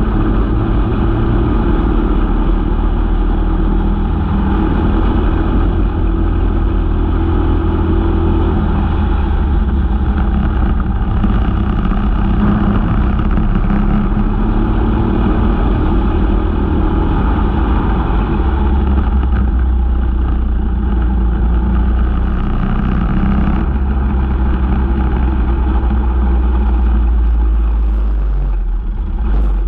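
Briggs & Stratton LO206 single-cylinder four-stroke kart engine running at race speed, heard from on board, its pitch rising and falling as the kart accelerates and lifts through the corners. The sound briefly drops near the end.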